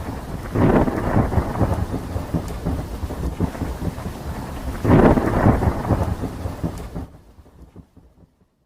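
Thunderstorm sound effect: thunder over steady rain, with two loud thunderclaps, about a second in and about five seconds in, each rolling on as rumble. It fades out near the end.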